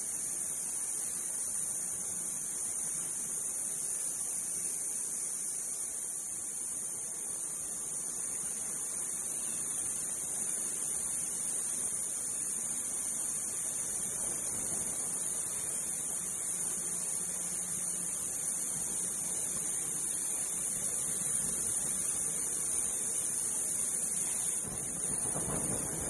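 Industrial ultrasonic cleaning machine running: a steady high-pitched hiss with a few thin whining tones in it, from the ultrasonic tank at work.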